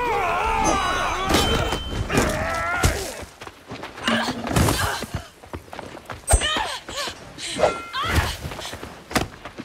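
Film fight-scene soundtrack: shouts and grunts, with heavy thuds of blows landing. The sharpest hit comes about six seconds in.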